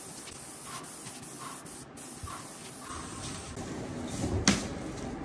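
Airless paint sprayer gun hissing steadily as it sprays paint. About three seconds in the sound changes, and near the end there is a single sharp click.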